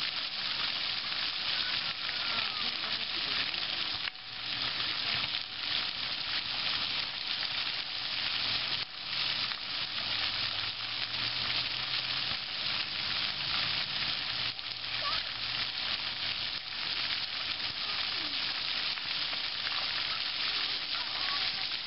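Splash-pad ground fountain jets spraying and splattering water onto the pavement, a steady hiss.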